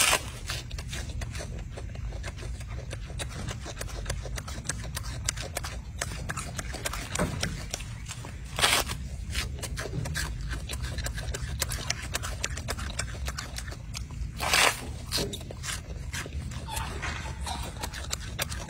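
Golden snub-nosed monkey chewing and tearing crisp lettuce leaves: a steady run of small crunches and crackles, with a few louder rustling bursts.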